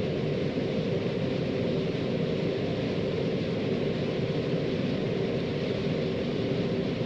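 Steady engine and machinery drone of a John Deere combine running, heard from inside its cab, with a constant low hum.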